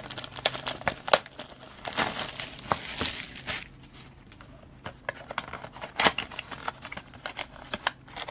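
Plastic wrapping on a mini box of trading cards being torn open and crinkled, with many sharp, irregular crackles, the densest run about two to three seconds in.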